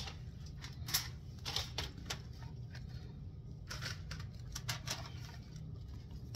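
Diced zucchini and squash pieces tumbling from a glass dish onto parchment paper. Irregular soft taps and paper rustles come in small clusters as a gloved hand spreads them, over a steady low hum.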